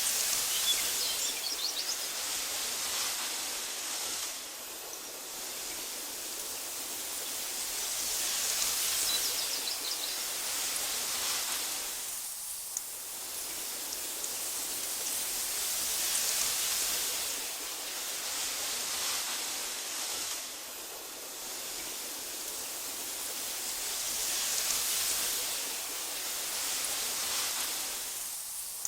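Wind blowing through tall meadow grass as a steady hiss that swells and fades in slow gusts about every eight seconds. A few faint high chirps near the start.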